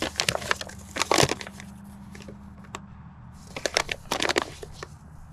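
A paper instruction sheet being unfolded and handled, crackling and rustling in two spells: through the first second and again around four seconds in.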